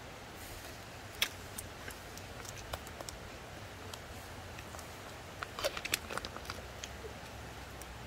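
Plastic film lid crinkling and crackling as it is peeled off an Ottogi instant rice tray. There is one sharp crackle about a second in, and a quick run of crackles a little past the middle.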